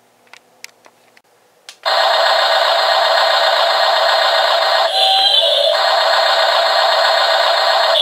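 A few faint clicks, then about two seconds in the Double E 1/16 RC excavator's built-in electronic sound effects switch on loud and buzzy through its small speaker. The tone changes briefly around five seconds in.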